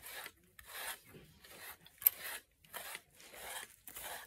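A green pin slicker brush raking through a dog's thick coat: repeated scratchy brush strokes, about two a second, while the dog is groomed for shedding hair. A sharp click about halfway through.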